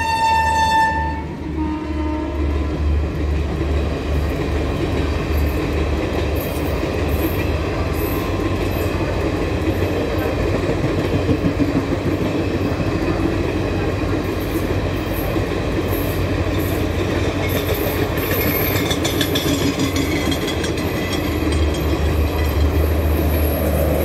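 A passenger express train running fast. Its horn cuts off about a second in, followed by the steady rumble and clatter of the coaches rolling past on the rails.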